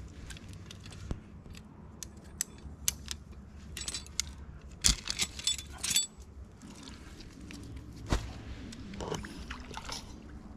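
Steel 330 body-grip trap and its setter clinking and clanking as the trap is worked off a caught beaver. The sharpest clanks come in a cluster about five to six seconds in, with another single clack about eight seconds in.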